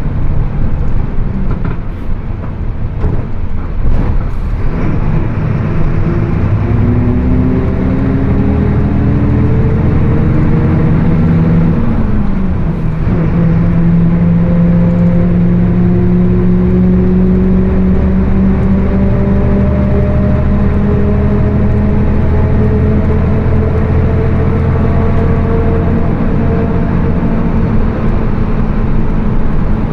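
Mercedes-Benz OF 1724 BlueTec 5 bus under way, its differential growling loudly with a whine that climbs in pitch as the bus gathers speed. The pitch falls once about twelve seconds in, then climbs slowly again, and falls again near the end.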